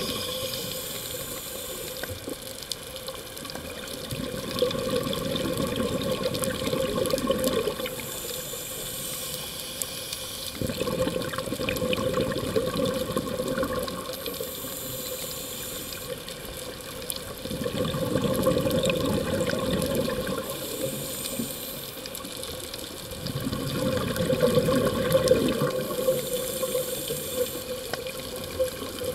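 Scuba diver breathing through a regulator underwater, in a steady cycle about every six seconds: a short hiss on each inhale, then a longer, louder rush of bubbles on each exhale.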